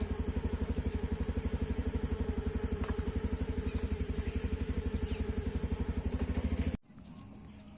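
Motorcycle engine idling with a steady, even chug, stopping abruptly near the end.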